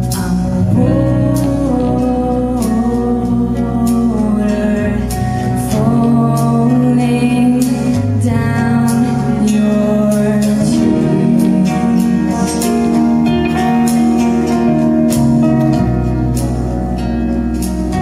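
Live band playing a song: acoustic guitar and drums with a singer's voice over them, cymbal strokes keeping a steady beat.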